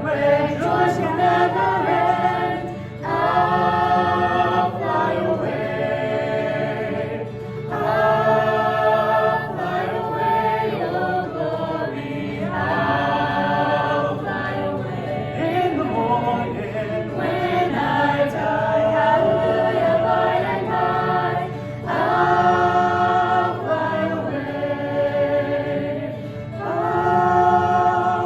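Choir singing in harmony, in phrases of sustained chords each held a second or two with brief breaths between.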